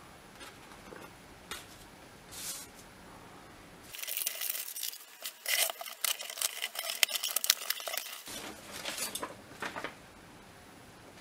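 Cardboard parcel being opened by hand: light paper rustling, then from about four seconds in a dense run of loud crackling and ripping as the packing tape is torn away and the cardboard flaps pulled open, followed by softer rustling of paper and packing peanuts.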